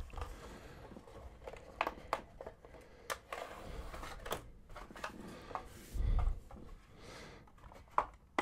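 Cardboard packaging being handled: a tray slid out of its cardboard sleeve with rubbing and scattered light clicks and taps, and a dull low thump about six seconds in.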